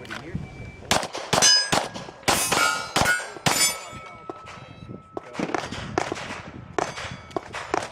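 Pistol shots fired at steel plate targets, each hit answered by the plate's ringing clang. A quick string of shots and hits runs for about three seconds, then a few more follow after a short pause.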